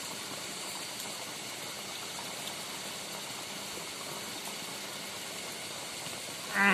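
Steady, even background hiss with faint high steady tones, and a short voiced sound from a person near the end.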